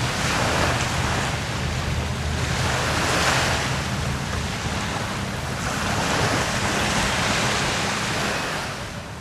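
Sea waves breaking on a shore, the surf swelling and falling back in slow surges about every three seconds, fading near the end.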